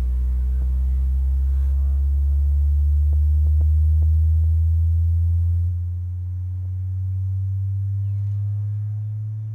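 Harbinger Vari VS18 18-inch powered subwoofer playing a bass frequency sweep: one deep tone gliding slowly upward, with fainter overtones above it. The tone drops in loudness about six seconds in.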